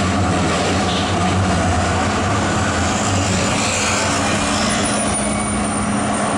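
Zürich tram running along street track, heard at an open window: a steady rolling noise of wheels on rails and rushing air over a low motor hum. A thin high whine joins in about five seconds in.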